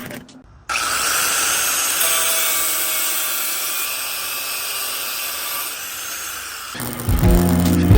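A power tool cutting through metal stock, with a steady high-pitched grinding hiss. It starts abruptly just under a second in and cuts off about a second before the end.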